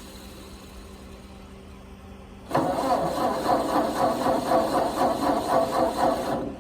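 Starter cranking a 1946 Ford 2N tractor's four-cylinder flathead engine in an even rhythm for about four seconds without it catching. The engine won't fire, a hard start. The cranking begins about two and a half seconds in and stops abruptly.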